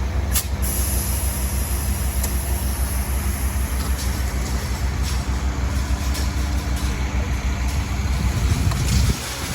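Diesel engine of a truck-mounted concrete boom pump running steadily with a deep drone. The drone drops away abruptly near the end.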